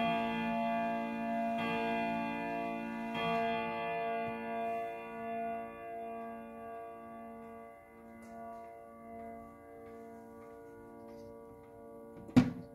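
Hermle triple-chime wall clock striking the hour: evenly spaced strokes about a second and a half apart, the last about three seconds in, then the ringing tones slowly die away. Near the end comes a single loud knock.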